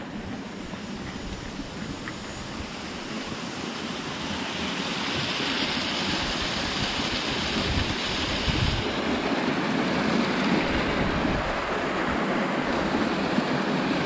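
Waterfall rushing through a narrow rock gorge: a steady hiss of falling water that grows louder about four seconds in.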